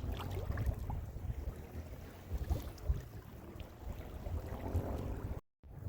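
Wind buffeting the microphone in gusts, with light water noise around a kayak on the bay. The sound cuts out completely for a moment near the end.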